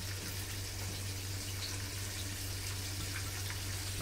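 Chicken pieces frying in a deep pot of hot oil: a steady sizzling hiss with a few faint pops, over a low steady hum.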